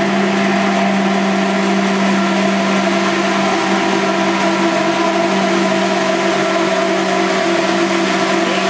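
Electric hand blender running flat out, its blade held at the bottom of a tall beaker to emulsify garlic, milk and sunflower oil into alioli: a loud, steady motor hum at an unchanging pitch.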